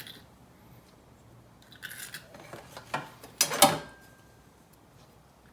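Wire battery-terminal cleaning brush scraping a battery cable clamp: a short scratchy stroke about two seconds in, a click, then a louder scrape about three and a half seconds in.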